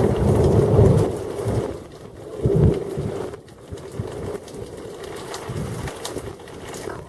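Thunder rumbling loudly and then fading, with a second sharper swell about two and a half seconds in.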